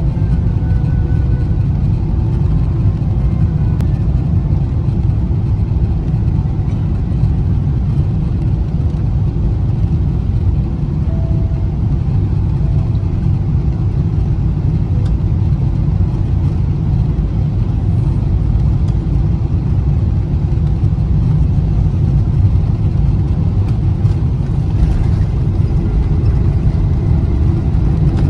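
Cabin noise of a Boeing 777 airliner on final approach: a steady low rumble of engines and airflow heard from inside the cabin. It gets a little louder near the end as the aircraft touches down and the spoilers go up.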